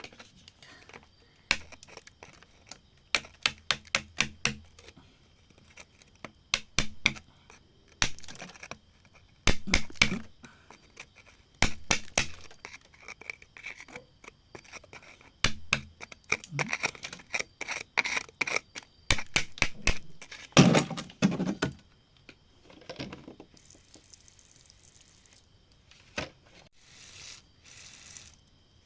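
Tools working on rock: runs of quick, sharp taps and clicks with scraping, as stone is chipped and pried from a crack, and a heavier thud about two-thirds of the way in.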